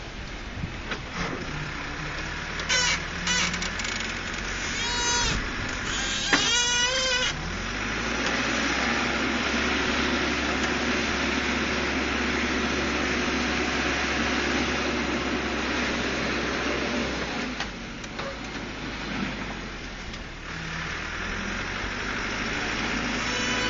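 Caterpillar 416C backhoe's Perkins turbo diesel running, working harder and louder for several seconds from about 8 s in before easing off. A few short high-pitched squeals come a few seconds in.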